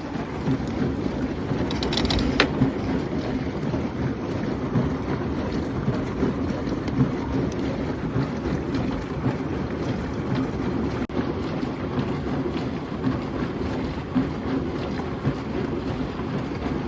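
Dishwasher running, a steady low hum with a rushing noise and a couple of sharp clicks about two seconds in. It is being run to test a timer that fails to advance.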